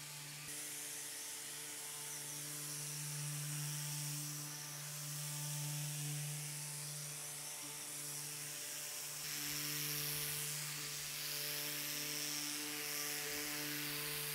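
Electric orbital sander with a rectangular pad and dust extraction, running steadily with a buzzing hum as it sands the first coat of paint. The hum swells and dips as the sander is pressed and moved over the surface.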